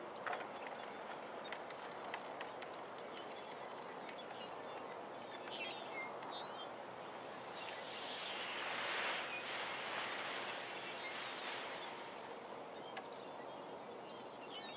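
Faint open-field ambience: a steady hiss with scattered small bird chirps, a breathy noise that swells and fades around the middle, and one short sharp click about ten seconds in.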